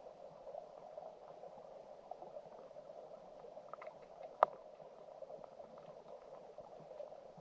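Underwater sound of a shallow stream heard by a submerged camera: a steady, muffled rush of flowing water with scattered small clicks, and one sharp click about four and a half seconds in.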